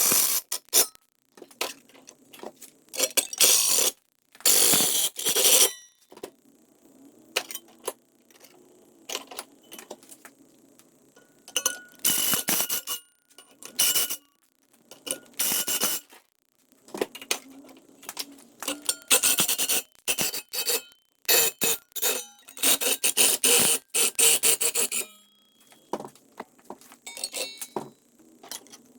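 Aluminium sheet being cut or ground with a power tool in short, irregular bursts, the metal ringing with thin steady tones during the cuts.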